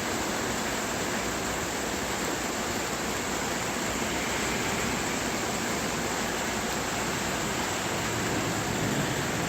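Heavy rain in a downpour, a steady, even hiss of falling water.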